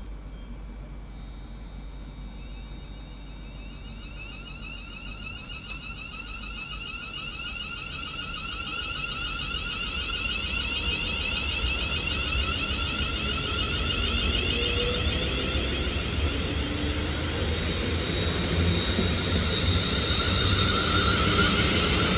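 Class 350 Desiro electric multiple unit running slowly alongside the platform. Its traction motors give a whine of several steady high tones over a low rumble, growing louder as it comes closer.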